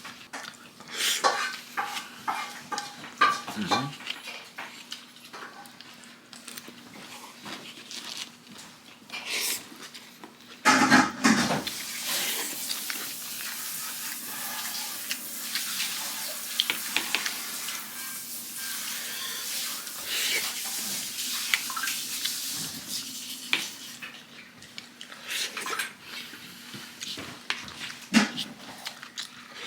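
Spoon and fork clinking and scraping against a plate of stir-fry and rice as it is eaten, in scattered sharp clicks with a louder cluster in the middle. A steady hiss runs beneath for about twelve seconds after that.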